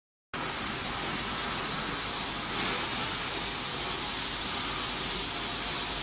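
Jumbo vertical flat glass washing machine running: a steady, loud rushing hiss that cuts in suddenly just after the start and holds level.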